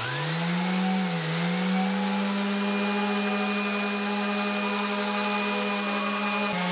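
Electric random orbital sander spinning up to speed and sanding an epoxy-and-wood tabletop. Its motor dips briefly about a second in, then runs steadily.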